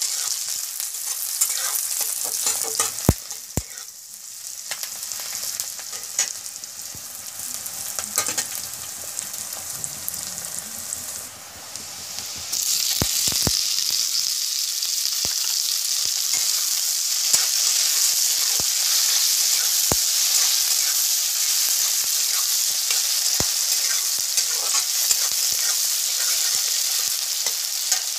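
Chopped onions and green chillies sizzling in hot oil in an iron kadai, with a steel spatula scraping and clicking against the pan as it stirs. About halfway through, chopped tomatoes go in and the sizzle turns suddenly louder and steadier.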